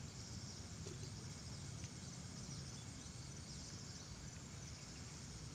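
Faint outdoor ambience: a steady high chirring of insects over a low, even rumble.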